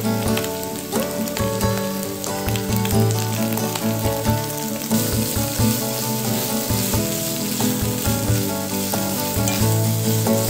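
Green pepper strips and tuna sizzling in a frying pan while chopsticks stir them, with background music underneath.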